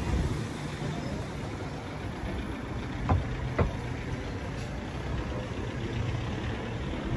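Street traffic: a steady low rumble of vehicle engines, with two short sharp knocks about half a second apart a little after three seconds in.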